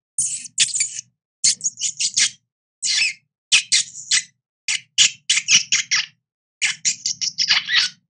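Rat squeaking: about two dozen short, high squeaks in quick irregular runs, with silent gaps between the runs.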